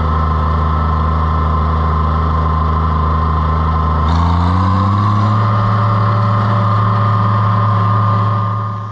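Tractor engine running steadily under way. About four seconds in, its note rises to a higher steady pitch as the engine speeds up.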